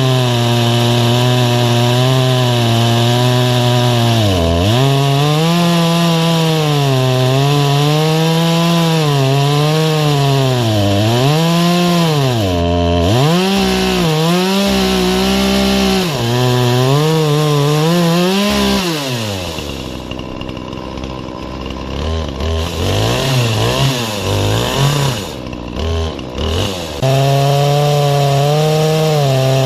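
Two-stroke Poulan chainsaw in an Alaskan chainsaw mill cutting through a white oak log, running at full throttle. The engine speed sags and recovers over and over as it loads up in the cut. About two-thirds of the way through it drops to a low, uneven speed for several seconds, then goes back to full throttle near the end.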